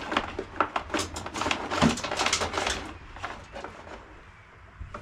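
Throttle cable being snaked along the brake line through a scooter's frame, with quick irregular clicks and rattles of cable against plastic and metal parts. The clicks are dense for about three seconds, then thin out.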